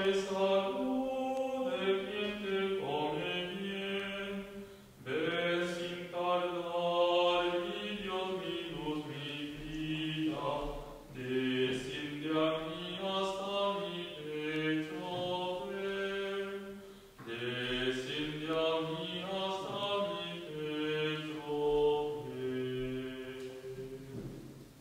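Unaccompanied voices singing a slow communion hymn in four long phrases, with short breaths between them.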